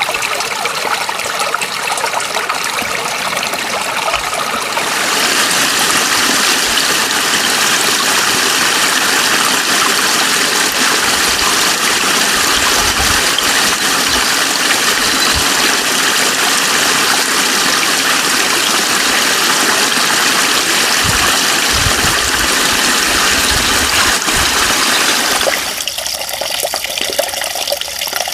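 Water flowing steadily, a continuous rush. It grows louder and fuller about five seconds in, then drops back to a thinner sound near the end.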